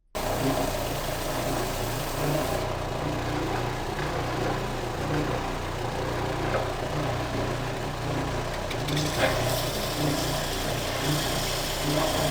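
Electric sander running steadily with a low motor hum, grinding a chamfer onto the edge of a small wooden base. Its sound cuts in and out abruptly, and the grinding changes in brightness a couple of times as the wood is worked against it.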